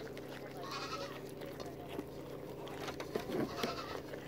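Nigerian dwarf goats eating pomegranate pieces from a metal pot. One gives a short bleat just under a second in and a lower call a little over three seconds in, over chewing and light clicks.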